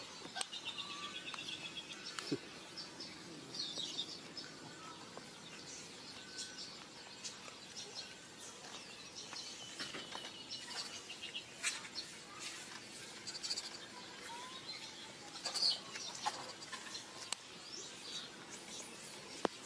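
Birds chirping and trilling: short high calls that come and go over faint outdoor background noise.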